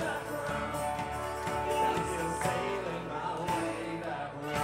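Live band playing a song: male vocals sung into microphones over guitars and drums.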